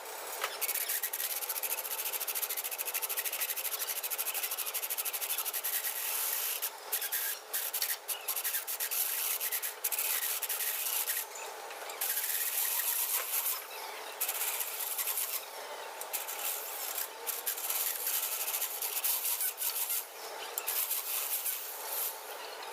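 Continuous rasping, rubbing scrape like sanding or filing, with short breaks every few seconds.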